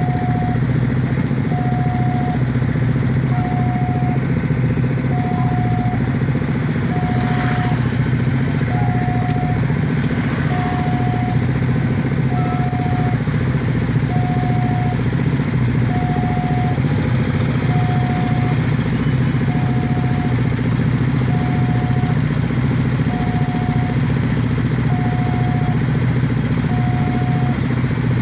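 Railway level crossing warning bell sounding a single repeated tone, one beep of just under a second about every two seconds. Under it runs the steady hum of a queue of motorcycle engines idling at the closed crossing.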